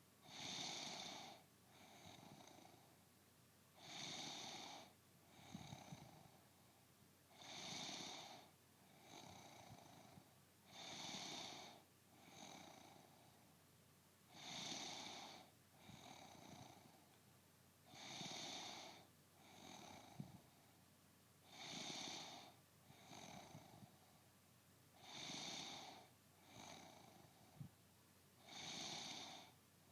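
A woman snoring faintly in her sleep, in a steady rhythm: a louder snore about every three and a half seconds, each followed by a softer breath.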